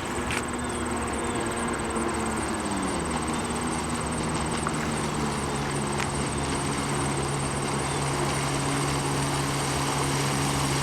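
Jet ski engine running, easing off in pitch about two to three seconds in, then holding steady at a lower speed.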